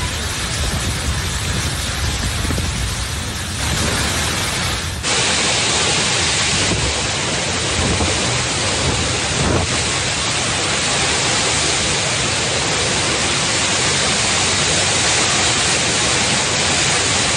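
Storm wind and heavy driving rain: a loud, continuous rushing noise. About five seconds in it changes abruptly to a brighter, steadier hiss.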